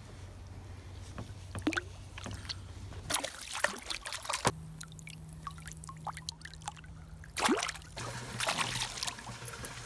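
A hooked largemouth bass thrashing and splashing at the water's surface beside a kayak. The splashes come in irregular bursts, with the strongest about three seconds in, again at seven and a half seconds, and near the end.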